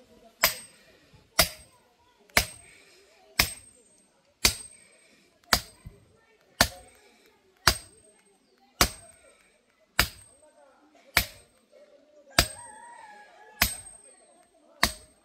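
A sledgehammer striking a steel soil-sampling probe, driving it into the ground: fourteen sharp metallic clangs, a little more than one a second, each with a short ring, the strokes slowing slightly near the end.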